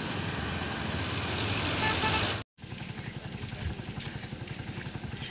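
A motor vehicle's engine running, with a broad hiss of road or wind noise. The sound drops out in a brief silent cut about two and a half seconds in, then carries on as a steady, low, rapid engine pulse.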